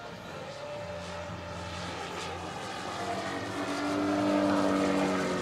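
Engine and propeller of a large RC scale model North American Harvard (AT-16 / T-6 Texan) in flight, a steady pitched drone. It grows louder as the plane comes closer and is loudest about four seconds in.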